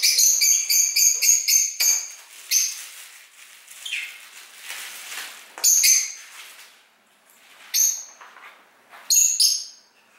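Pet parrot calling: a rapid run of loud, high chirping calls for the first two seconds, then three separate short calls a couple of seconds apart, with softer rustling between them.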